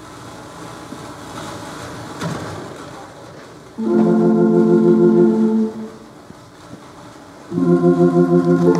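Organ playing sustained chords, starting about four seconds in: one held chord, a short break, then a second chord with a quick wavering tremolo. Before the organ comes in there is only low shuffling movement.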